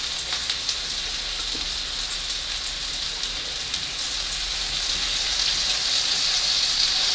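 Steak and shrimp sizzling on a hot hibachi cooking stone: a steady crackling hiss that grows a little louder toward the end.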